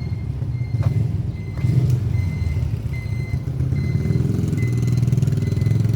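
A large vehicle engine running close by, a steady low rumble with a fast even pulse, with short faint high-pitched tones breaking in now and then.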